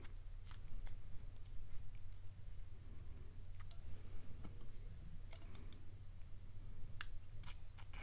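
Faint, scattered small metallic clicks and taps as a brass padlock plug and a shim are handled and worked between the fingers, over a steady low hum.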